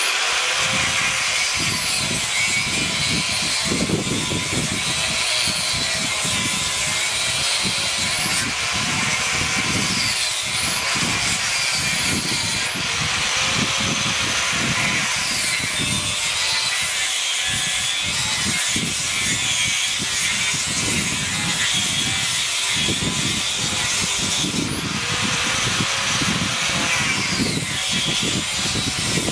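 Electric angle grinder switched on and cutting through the copper end windings and steel of an AC compressor motor stator. Its high whine climbs as it spins up, then sags and recovers several times as the disc bites into the work and eases off.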